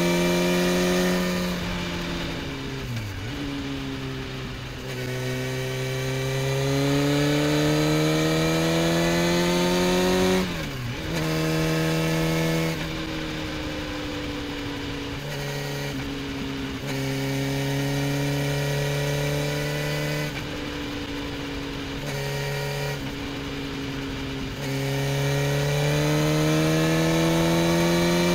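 Motorcycle engine heard from on the bike while riding, its pitch climbing steadily under throttle and dropping sharply several times as gears are changed or the throttle is rolled off.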